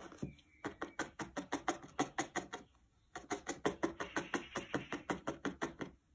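Felting needle stabbing repeatedly through wool fibres and a felt backing into a foam pad: a quick, even tapping of about seven strokes a second, with a short break about halfway through.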